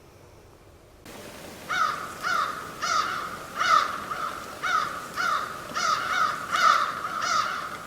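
Crows cawing in a rapid run of harsh calls, about two a second, starting about a second in.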